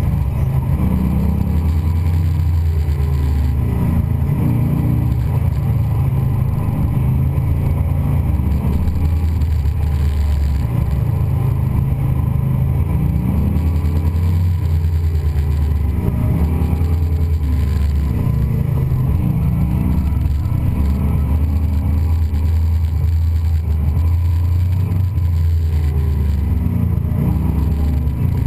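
A car engine running hard through an autocross course: a loud, continuous low rumble that rises and falls in pitch every few seconds as the car accelerates and slows.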